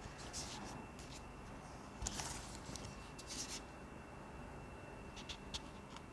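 Light handling sounds: scattered soft clicks and short rubbing scrapes, the loudest about two seconds in and again a little after three seconds.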